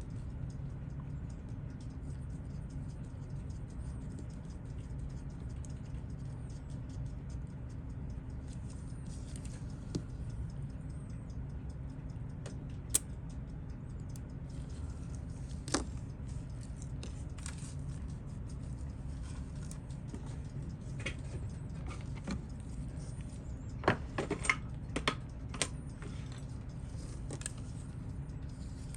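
Scattered small metallic clicks and taps of watchmaker's tools and tiny parts being handled while a watch movement is taken apart, over a steady low hum. The clicks are sparse at first, with a quick cluster near the end.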